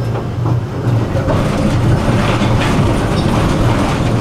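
Tram running on its rails, heard from inside the car: a steady low rumble of wheels and motors, with clattering and rattling growing louder from about a second in as it rolls over the curved track and crossings of a junction.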